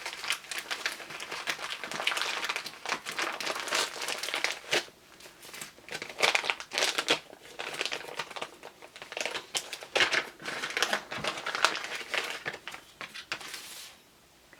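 Packaging being handled and unwrapped: irregular crinkling and rustling of wrapping, with sharper crackles now and then, stopping shortly before the end.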